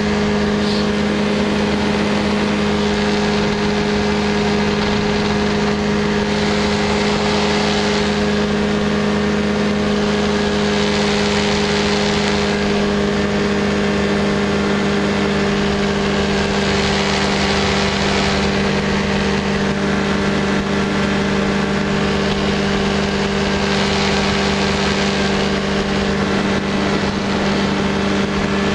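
Small aircraft engine running at a steady, unchanging cruise throttle, heard from on board, with wind rush over the airframe swelling and easing every few seconds.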